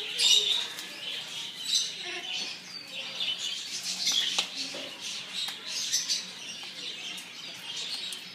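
Pet birds chirping in a run of short, high calls that come in bunches every second or two.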